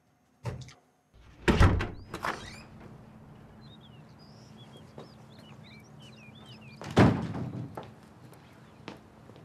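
Heavy wooden front doors thudding shut about seven seconds in, after a few other thuds in the first couple of seconds. Small birds chirp in between.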